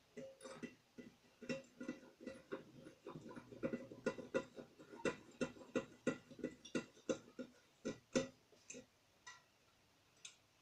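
An LED bulb's screw base being twisted into the lamp holder of a brass bulkhead light: a run of short, irregular clicks and scrapes, a few a second, dying away about a second before the end.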